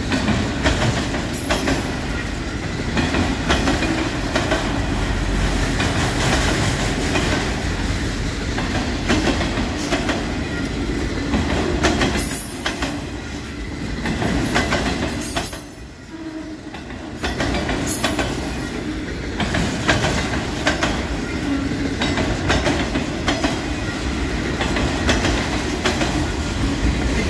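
Freight train of autorack cars passing close by at speed: a steady rumble with a rapid clatter of wheels over the rails. It dips briefly in loudness about sixteen seconds in.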